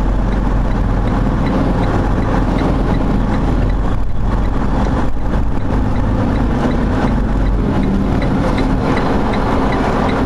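Freightliner semi-truck's diesel engine running steadily at low speed, heard from inside the cab, with a faint regular ticking over the engine note.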